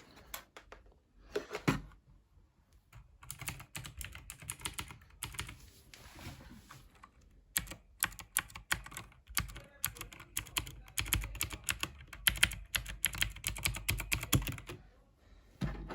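Mechanical keyboard with clicky blue switches (AJAZZ AK33) being typed on: a few scattered clicks, then a fast, irregular run of key clicks from about three seconds in until near the end.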